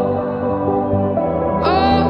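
Soft ambient music of sustained, held tones, with a brighter new note coming in near the end.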